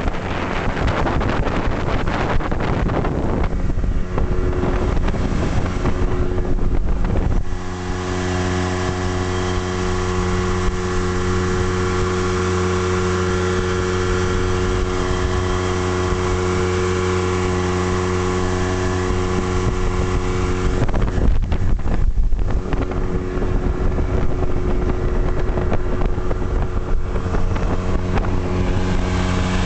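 Yamaha 25 hp outboard motor driving a small boat under way, running at a steady pitch. Wind buffets the microphone for the first seven seconds or so, then the engine's steady note dominates, with a short disturbance about two-thirds of the way through.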